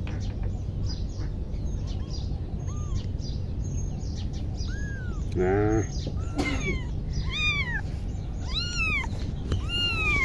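Newborn kitten mewing: a series of high, rising-and-falling cries that come faster in the second half. These are distress calls that bring the mother cat running.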